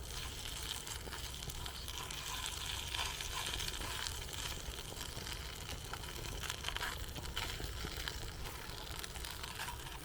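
Food sizzling as it fries in a pan, a steady hiss with fine crackling throughout.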